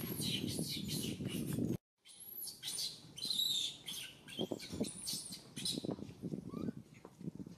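Baby long-tailed macaque crying in short, high-pitched squeaky chirps with rising and falling pitch. A dense noisy background under the calls cuts off abruptly a little under two seconds in.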